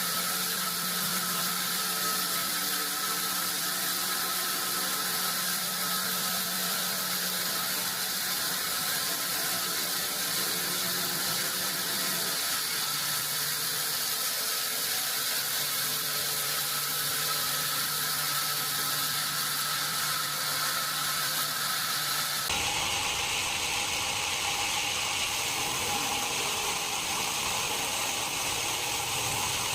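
Steady machine hiss with thin high whining tones, like running factory machinery. The sound changes abruptly about three-quarters of the way through to a different steady mix.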